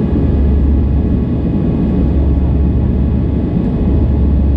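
Airbus A320 jet engines and airflow heard inside the cabin as a steady, loud, low rumble while the airliner climbs after takeoff.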